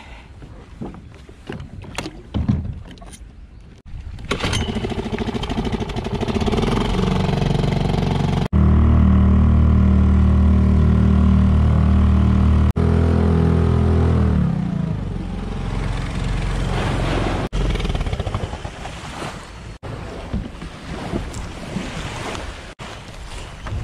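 A small 2-horsepower outboard motor running as the boat moves across the water, a steady engine note that is loudest through the middle and then dies away. Knocks come before it, and wind and water noise follow.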